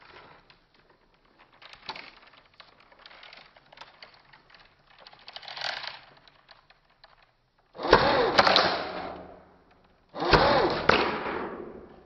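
Airsoft gun firing two short rapid bursts, about eight seconds in and again a couple of seconds later, each loud at the start and trailing off over about a second and a half. Faint clattering comes before them.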